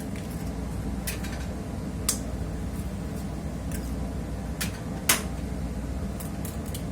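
Steady low hum of a ship's machinery, with a few sharp kitchen taps and clicks, the loudest about five seconds in.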